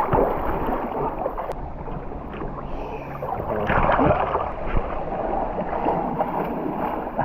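Rushing, gurgling river water running steadily through a narrow canyon.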